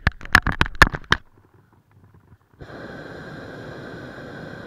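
A quick run of sharp knocks in the first second, then after a short lull a steady hissing rush with faint whistle-like tones starts suddenly, about halfway through, and holds.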